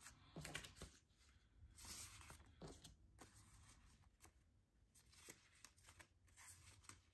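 Faint rustling of polymer banknotes against a clear plastic binder pouch as the bills are slid in, with a few light clicks and taps. Near silence between them.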